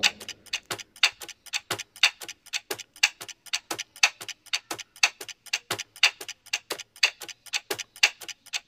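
Clock-ticking sound effect marking a quiz countdown timer: an even run of sharp ticks, several a second.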